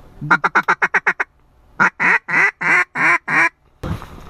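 Mallard-style duck call blown in quacks: a fast run of about eight short notes, a brief pause, then five longer, louder quacks. A burst of handling noise starts near the end.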